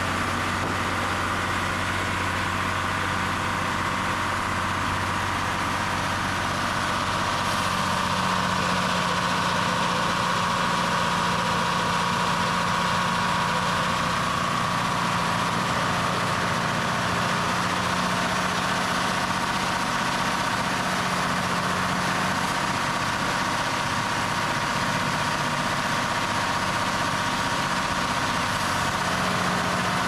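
Sawmill's stationary engine running steadily, a low hum with a steady high whine over it, getting slightly louder about eight seconds in.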